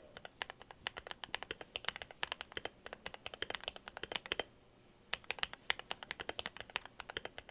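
Fast typing on a Redragon K552 mechanical keyboard with lubed Outemu Red linear switches, clipped and Holee-modded stabilizers and HK Gaming pudding keycaps: a rapid run of key clacks that stops for about half a second past the middle, then starts again.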